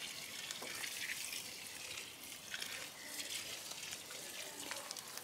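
Water pouring from a watering can, a faint, even splashing and trickling with small irregular patters.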